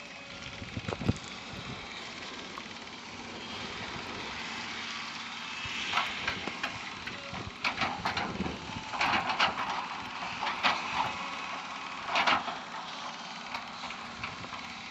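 Excavator engine running steadily, with a knock about a second in and repeated bursts of clattering and scraping from about six seconds in until near the end as the machine works.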